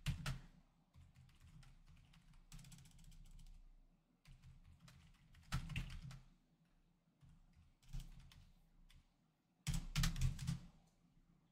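Computer keyboard typing in short, scattered bursts of clicks, with the densest and loudest burst near the end.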